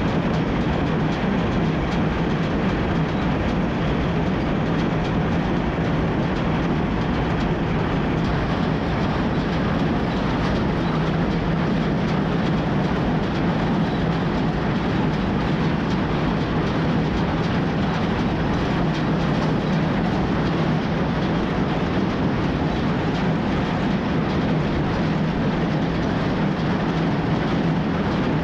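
Farm tractor pulling a small square baler through a hay field: the engine runs steadily under load while the baler works, a continuous mechanical din with no break.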